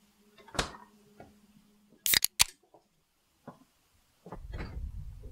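A soft knock, then two sharp, loud mechanical clicks in quick succession about two seconds in, followed near the end by a low rumbling noise.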